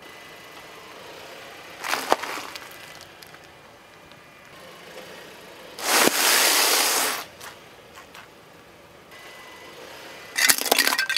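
A car tyre rolling over and crushing objects on asphalt. There is a short crunch about two seconds in, then the loud crackling crunch of a bag of cornflakes being flattened, lasting just over a second. A third crunching burst with some high ringing tones starts near the end.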